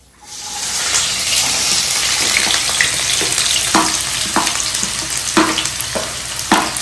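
Hot oil with fenugreek seeds in a kadhai breaks into loud, steady sizzling just after the start, as more food goes into the pan. A few short knocks of a stirring spoon against the pan come in the second half.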